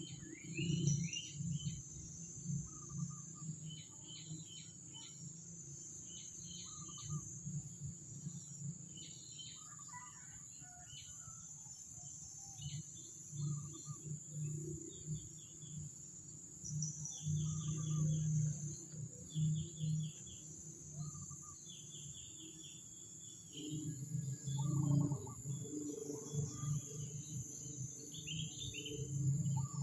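Outdoor rural ambience. A steady high-pitched insect drone runs throughout, with small birds chirping in short repeated bursts. Under it come low rustles and knocks, loudest about two-thirds of the way through.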